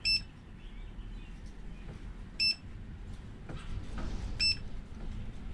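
Simulated Nixie tube clock beeping three times, about two seconds apart, each a short high electronic beep as a button on its back is pressed.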